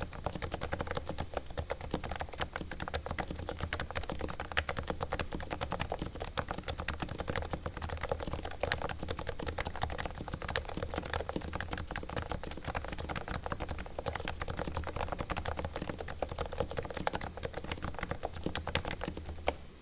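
Typing on a Realforce R2 TKL silent Topre keyboard with variable 30–55 g weighting, its sliders and springs lubed with Krytox and stabilizers lubed. Rapid, continuous keystrokes that stop just before the end.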